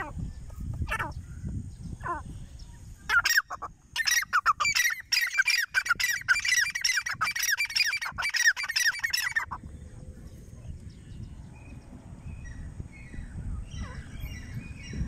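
Grey francolin calling: a fast, loud run of harsh, repeated notes starting about three seconds in and breaking off after about six seconds, with fainter calls before and after.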